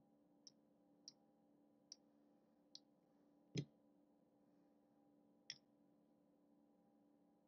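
Casino chips clicking as they are set down one at a time onto stacks on a felt craps table while being counted out: six separate clicks, the fifth one loudest with a dull knock.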